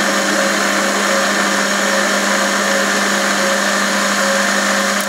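Warco WM180 mini lathe running under load, its parting tool cutting off a 6 mm rod. The motor hum and the cutting noise hold steady and loud.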